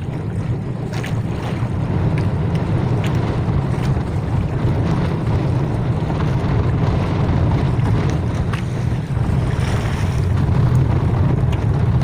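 Wind buffeting the microphone and choppy sea washing around an outrigger fishing boat, with a steady low hum underneath and a few faint ticks.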